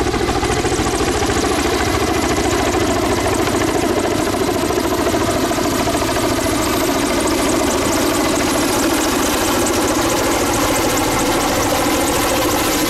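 Kamov Ka-32 coaxial-rotor helicopter flying low and close, its turbine engines and twin rotors making a steady loud noise with a rapid chopping blade beat.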